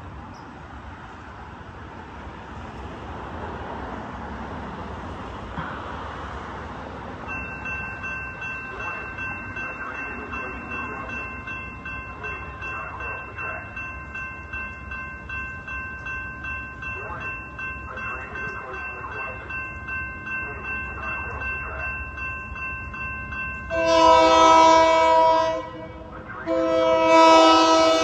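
An approaching train's horn sounds two loud chord blasts near the end, each about two seconds long with a short gap between. Before them a steady, fast-pulsing high ringing runs under the rising rumble of the oncoming train.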